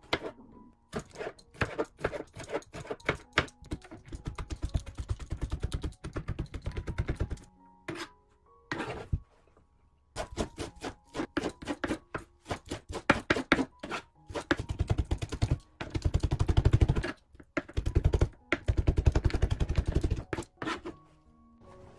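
Kitchen knife chopping and mincing garlic on a plastic cutting board: single cuts at first, then several fast runs of rapid strikes on the board with short pauses between. Background music plays underneath.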